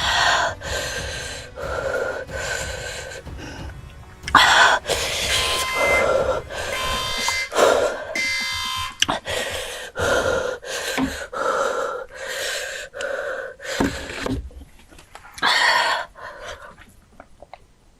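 A person's voice in repeated gasping, panting cries, coming in loud irregular bursts, typical of someone reacting to the burn of an extremely hot chip. The bursts fade out near the end.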